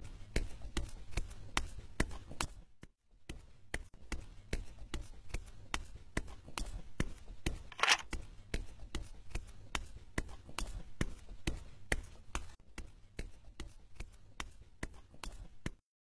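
Light tapping footsteps of a tiptoeing cartoon mouse, about two to three a second, over a steady low hum, with a short hiss about eight seconds in. It all stops suddenly near the end.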